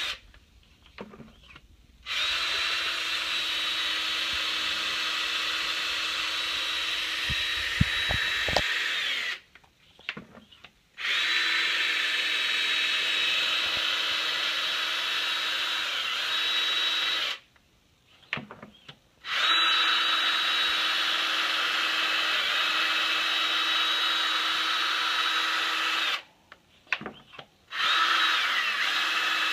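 Cordless drill running steadily with a motor whine, spinning a magnet separator attachment through black sand to pull out the iron sand. It stops four times for about two seconds each and starts up again.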